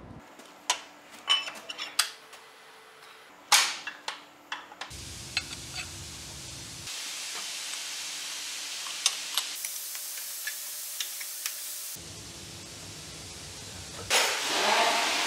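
Sharp metallic clinks and knocks of steel gearbox parts and tools as a shift rod and the range-change shift fork are fitted to a ZF 16S 1820 truck gearbox. Behind them a steady hiss switches abruptly several times, and a louder rushing noise comes near the end.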